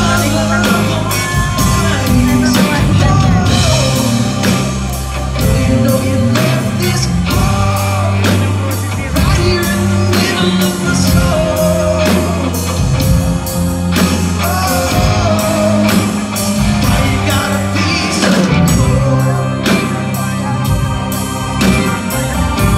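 Live blues band playing electric guitar, bass guitar, keyboard and drum kit, with a steady drum beat under bending guitar or vocal lines.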